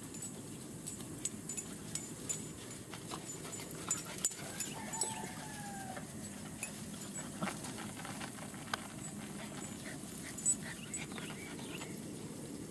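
German Shepherd puppies whining faintly, with one drawn-out falling whine about five seconds in and a few short whimpers near the end, among scattered sharp clicks that are loudest about four to five seconds in.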